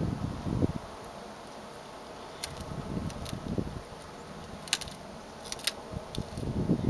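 Wind buffeting the microphone, dying down under a second in, then a quiet stretch broken by a few faint sharp clicks and soft gusts.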